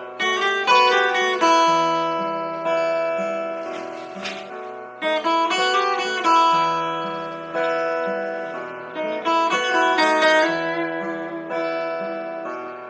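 Music played on a guitar-like plucked string instrument: picked notes and chords, each struck and left to ring out, in a repeating pattern, with a brief hiss about four seconds in.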